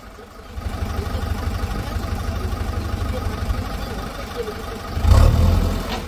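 An engine running steadily at a low pitch, getting briefly louder about five seconds in.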